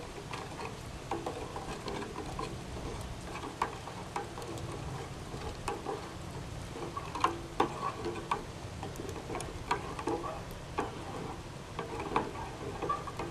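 A spoon stirring in a stainless steel cup, with irregular light clinks of metal against the cup's sides while hot chocolate is mixed.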